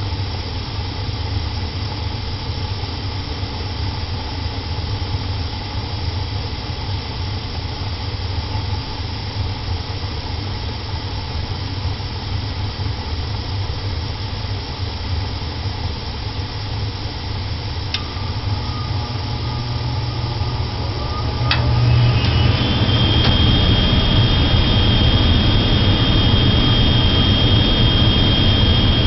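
Old gas furnace running with its burners lit, a steady low rumble. About three-quarters of the way in there are a couple of clicks, then the sound grows louder with a whine that rises and holds steady, as the furnace steps up into a stronger rush. This is the phase in which the faulty furnace blows its flames back out of the burner area.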